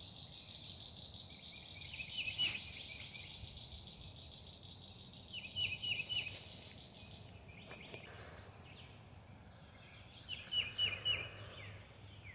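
A songbird sings three short phrases several seconds apart, each a quick run of three to five repeated high notes. A steady high insect drone runs beneath until about halfway through.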